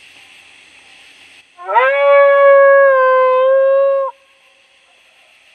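A coyote lone-howl locator call: one long howl that sweeps up quickly, holds a steady pitch for a little over two seconds, then cuts off. It is sounded to make nearby coyotes howl back and give away where they are.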